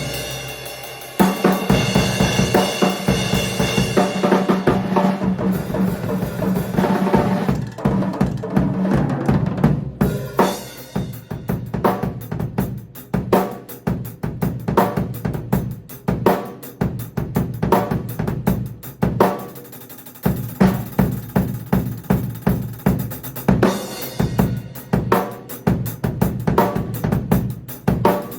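A drum kit played fast, with kick drum, snare, hi-hat and cymbals. Dense, cymbal-heavy playing thins out about a third of the way in to rapid, separate strokes, and fills out again about two-thirds of the way in.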